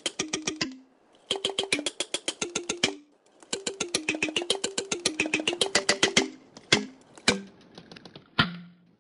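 Drink can's pull tab being plucked with a finger, giving quick pitched twangs that change pitch to pick out a melody. The plucks come in fast runs of about ten notes a second with short pauses between phrases, then a few separate single plucks near the end.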